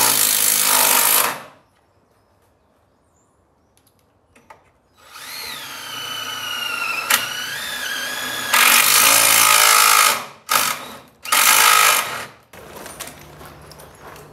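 Cordless drill driving screws into a steel garage door panel. A run of about a second, a pause, then a longer whine that dips and rises in pitch, followed by three shorter, louder bursts as the screws are driven home.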